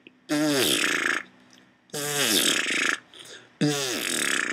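Beatboxer's signature wet lip-oscillation sound, made with tensed, spit-wet lips, performed three times. Each one lasts about a second, with a falling pitch and a spitty hiss.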